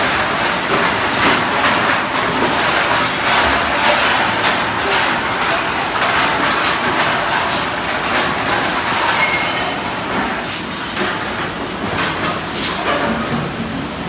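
Bottle depot sorting line running: a steady clatter of conveyors and sorting machines with irregular sharp clinks of returned bottles and cans knocking together.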